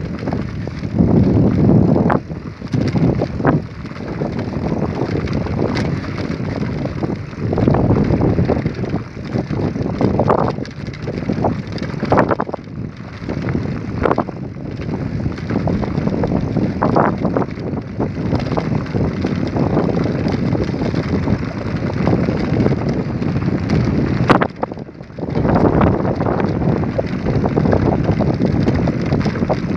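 Wind buffeting the microphone over the rumble of bicycle tyres on a sandy dirt track, with a few sharp knocks as the bike jolts over bumps. The noise drops out briefly about 25 seconds in.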